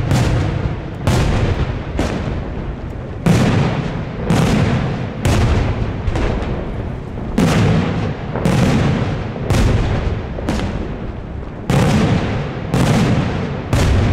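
Daylight fireworks shells bursting overhead in a steady run, roughly one loud bang a second, each with an echoing tail.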